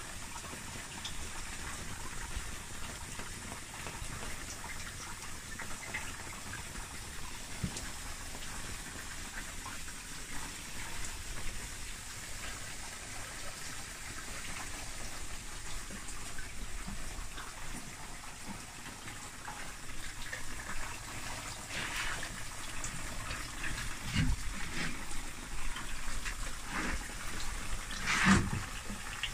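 Water trickling and dripping steadily into a small pond, with a few louder brief sounds near the end.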